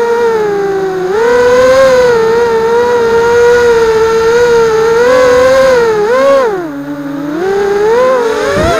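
Brushless motors and propellers of a 180-size FPV racing quadcopter whining, heard from a camera mounted on the drone itself. The pitch wavers with the throttle, sags briefly about two-thirds of the way through and climbs back. There is a brief knock near the end.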